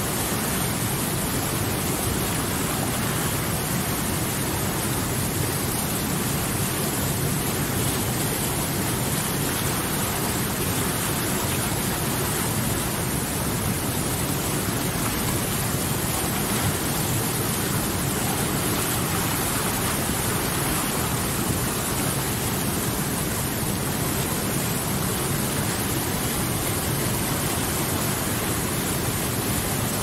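Whitewater rapids of a mountain river rushing and churning over boulders: a steady, unbroken roar of water.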